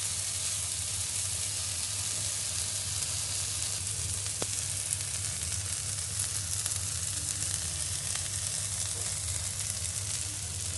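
Marinated paneer cubes sizzling steadily in a thin film of oil on a flat pan over a medium flame, searing until golden brown like paneer tikka. One faint click about four seconds in.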